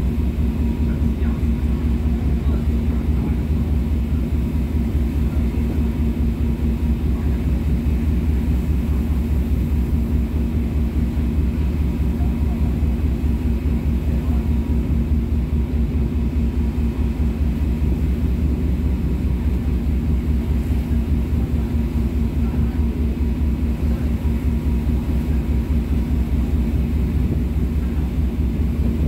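Star Ferry's engine running steadily under way, a constant deep hum with a steady low tone, heard from the open deck.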